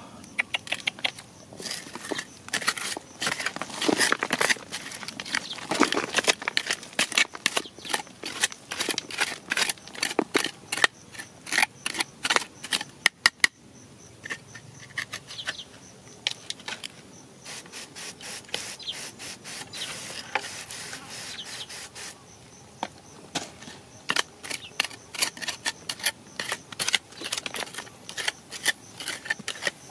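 A hand scraping and digging through damp, crumbly soil: irregular quick scratches and crumbling clicks, with a quieter lull around the middle before the scraping picks up again.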